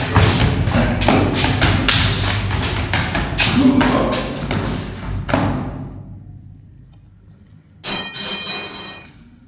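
Dramatic film score driven by heavy percussive thumps, about three a second, that fade out about six seconds in. Near the end a short bright ringing tone sounds for about a second.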